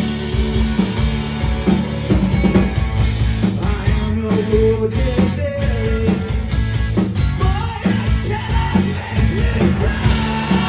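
A live rock band playing, with electric guitars, bass guitar and a drum kit under a sung lead vocal.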